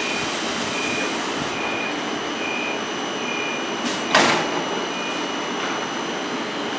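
Automatic passenger door of a PKP Intercity 111A-series coach closing: a string of short high warning beeps, then the door shuts with a loud bang about four seconds in.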